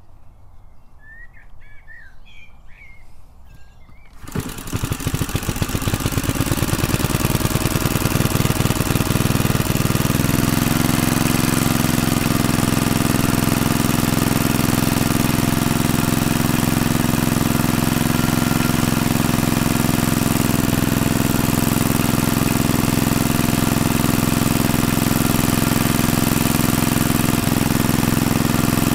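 BSA 300 watt generator set's small stationary engine starting about four seconds in. It picks up speed over several seconds, then settles into a steady, even run at full speed.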